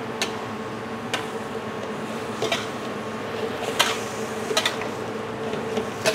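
Hard vegetables cooking in a wok with a little water over a high gas flame: a steady hiss of the burner and the cooking vegetables, broken by a handful of sharp clicks and knocks of a utensil against the wok.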